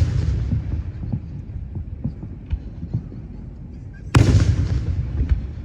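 Fireworks shells bursting: the rumbling tail of one boom fades over the first second, a second loud boom hits about four seconds in and rumbles on, and small crackling pops are scattered between them.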